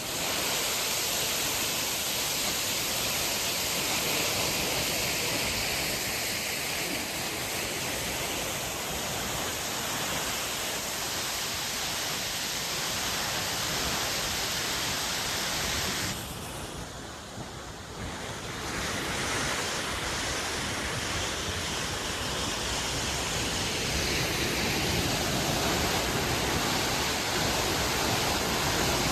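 Waterfall water rushing in a steady, even roar. About sixteen seconds in it drops and dulls for a couple of seconds, then comes back.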